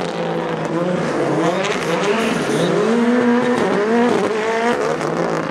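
Ford Fiesta rally car engine revving, its pitch climbing and dropping several times as the driver works the throttle and gears through the bends.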